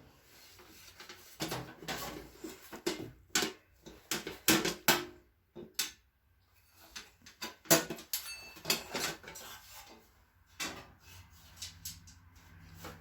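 Metal parts of an old Coleman camp stove being handled and fitted back together: an irregular run of clicks, clinks and knocks, with a short lull about halfway through.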